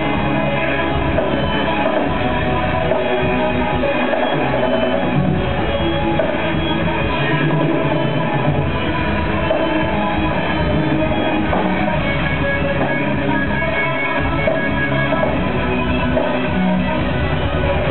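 Rock band playing live: electric guitars over a drum kit, heard from the audience.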